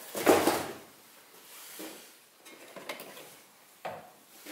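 Hands handling unboxed planer parts and packaging: a louder burst of sliding and clatter in the first second, then scattered light knocks and clicks.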